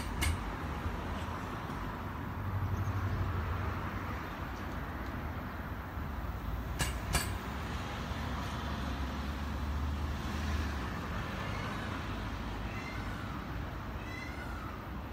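Steady low background rumble with a couple of pairs of sharp clicks. In the last few seconds faint short calls start up, about one a second.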